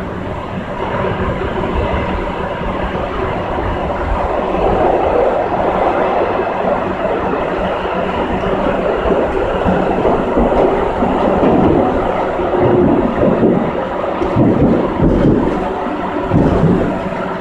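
CAF FE-07 steel-wheeled metro train running on the rails, heard from the driver's cab. A continuous rumble of wheels on track with a faint steady hum underneath grows louder a few seconds in, and irregular heavier knocks come near the end.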